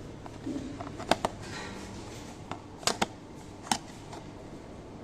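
Automatic cartoning machine running: a steady motor hum under irregular sharp mechanical clicks and clacks from its box-forming and packing mechanism, some coming in quick pairs.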